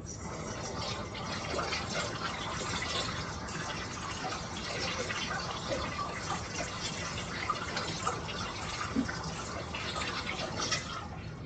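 Kitchen faucet running with hands being washed under it, water splashing into the sink. It starts abruptly and runs steadily until it stops near the end.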